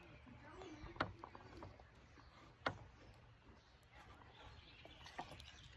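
Quiet room with two short, sharp clicks or taps, about a second in and again near the middle.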